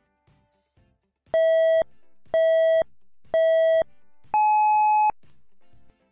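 Electronic countdown beeps: three short beeps about a second apart, then a longer, higher-pitched beep, signalling the start of a hearing-test tone sweep. Faint background music runs underneath.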